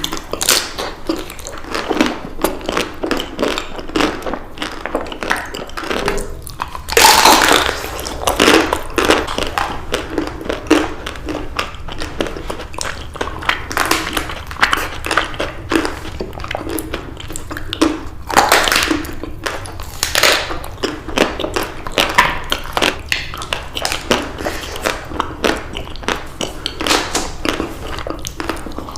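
Close-miked eating: biting into and chewing chocolate-coated ice cream bars, with a run of small sharp clicks and louder crunches now and then.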